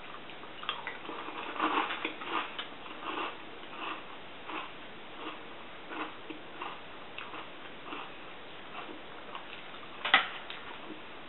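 A spoon clinking and scraping in a cereal bowl, with chewing of a mouthful of cereal, heard as soft, irregular clicks; the sharpest clink comes about ten seconds in.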